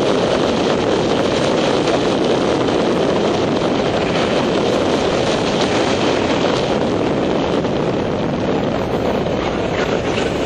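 Steady wind rush buffeting the microphone of a camera on a vehicle moving along a street.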